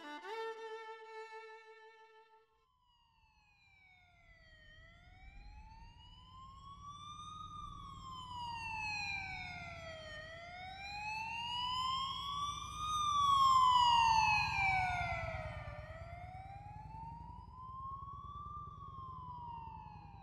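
A held violin note of the score dies away in the first couple of seconds; then an emergency-vehicle siren wails, slowly rising and falling about every five to six seconds over a low rumble. It grows louder to a peak a little past the middle, then fades.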